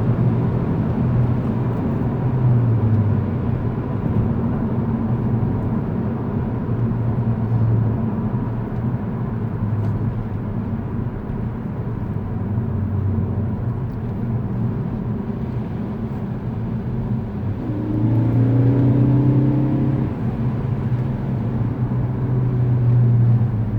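Ford ST car engine running while driving. The revs climb under throttle a couple of times and drop back off throttle, with no pops or crackles on deceleration: the crackle tune is not working.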